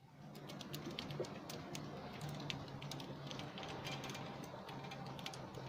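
Big-game fishing reel's drag ticking in quick, irregular clicks as a hooked shark runs and pulls line off the spool. A steady low engine hum runs underneath.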